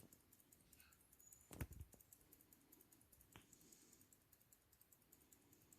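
Faint, rapid, even ticking of an IWC caliber 53 pocket watch movement running, several ticks a second, with two soft knocks of the watch being handled.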